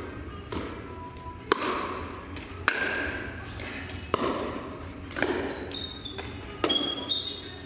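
A pickleball rally: paddles hitting the hollow plastic ball and the ball bouncing on the hard floor, a sharp pock roughly once a second, echoing in a large hall.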